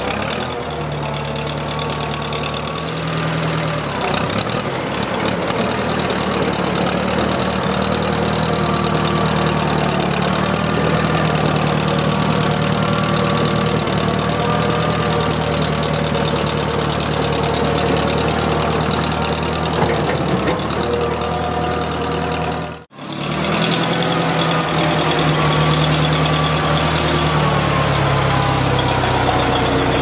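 Old Case farm tractor's engine running steadily as the tractor is driven. The sound drops out for an instant about two-thirds of the way through, then the engine carries on.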